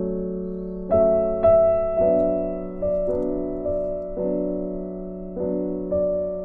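Background piano music: notes and chords struck about every half second to a second, each ringing and then fading.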